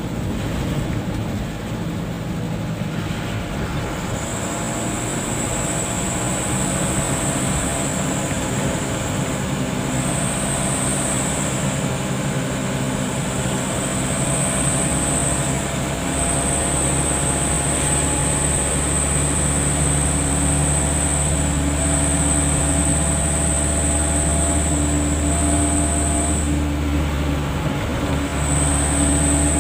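Steady engine and road noise of a vehicle driving at speed, heard from inside the cabin.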